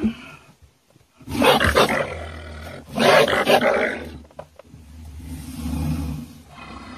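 An animal shut inside a log-box live trap giving two loud, harsh vocal bursts about a second and a half apart, then a lower, longer sound about five seconds in.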